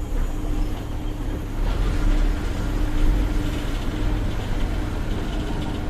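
Bus engine and road noise heard from inside the cabin: a steady low drone with a held hum over it.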